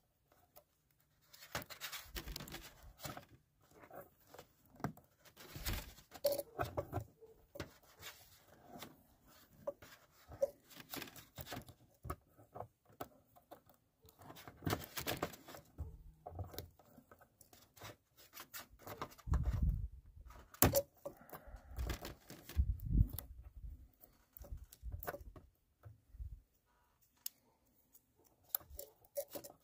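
Electrical tape being pulled off the roll and wrapped around spliced wire-nut connections: irregular tearing and crinkling with scattered clicks and handling noise. The heaviest stretch of handling comes a little after halfway.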